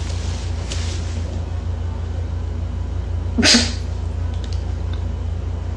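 A cat sneezes once, sharply, about three and a half seconds in, over a steady low hum.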